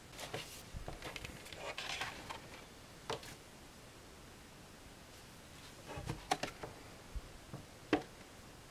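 Paper inserts and a cardboard LP jacket being handled: rustling for the first couple of seconds, then scattered taps and clicks of card against card and table.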